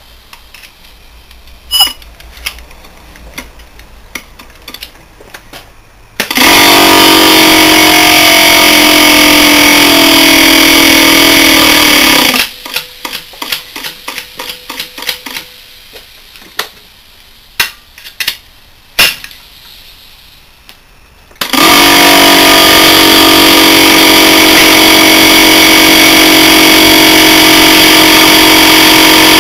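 Bulgarian-made Bulkon hermetic refrigerant compressor, its shell cut open, being run dry without oil to destroy it. It starts suddenly with a very loud mechanical running noise about six seconds in, its pitch sagging slowly, and cuts off about six seconds later. After a stretch of scattered clicks it starts again just past the midpoint and keeps running loudly.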